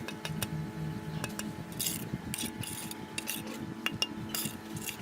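Metal hand tools scraping and clinking on cement mortar, typical of trowel plastering work: sharp clicks mixed with several short scrapes.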